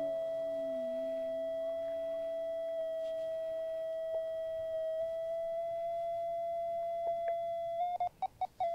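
RC transmitter's variometer tone from its speaker: a steady mid-pitched tone that steps slightly in pitch, the sound that signals the glider is sinking. Near the end it breaks into about four quick short beeps, then the steady tone returns.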